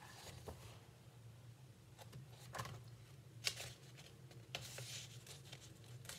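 Faint handling noise: a few soft taps and a brief rustle, as of a book or paper being handled, over a low steady room hum.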